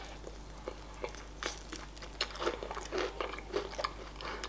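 A person chewing a bite of crispy KFC spicy fried chicken, with irregular crunches of the breaded coating that come thicker from about a second and a half in.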